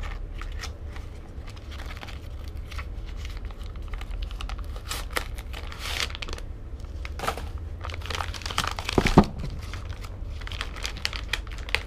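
Crinkling and tearing of packaging with scattered small clicks as a new pit bike drive chain is unwrapped and handled, with one louder thump about three-quarters of the way through.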